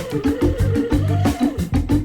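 Background music with a steady beat, drums and a bass line.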